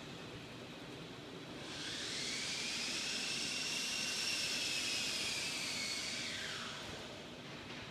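A high mechanical whine with hiss comes in about two seconds in, rising in pitch. It holds steady for about four seconds, then drops in pitch and fades away near the end.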